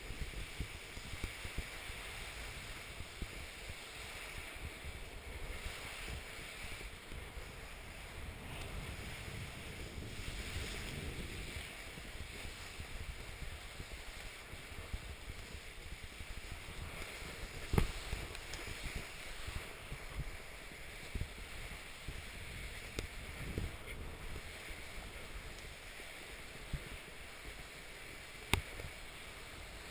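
Skis sliding and hissing over snow on a downhill run, with wind buffeting the microphone. A couple of sharp knocks stand out, one about eighteen seconds in and one near the end.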